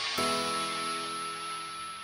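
Background music: a soft instrumental chord is struck just after the start and its held notes slowly fade.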